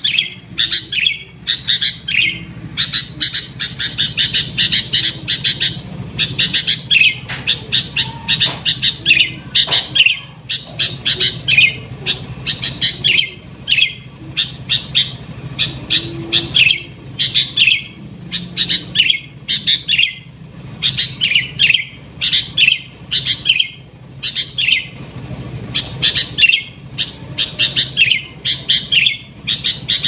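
Sooty-headed bulbul (kutilang) singing continuously, with rapid runs of chirping notes in clusters separated by short pauses.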